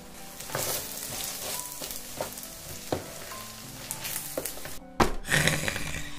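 Fried rice with kimchi and chives sizzling in sesame oil in a foil pan, stirred and scraped with a spoon, with scattered small scrapes and clicks. A sharp loud knock comes about five seconds in, followed by a louder stretch of sizzling.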